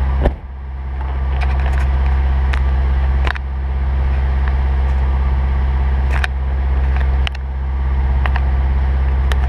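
Turbocharged Mazda Miata's four-cylinder engine idling steadily, heard from inside the cabin. Several sharp clicks and knocks sound over it, the loudest about a third of a second in.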